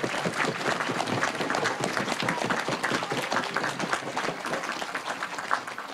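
Audience applauding, the clapping gradually thinning out toward the end.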